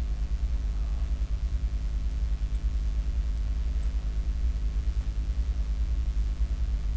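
Steady low electrical hum from the microphone recording setup, a buzzy drone with a wavering level. A couple of faint clicks come through, about two and a half and four seconds in.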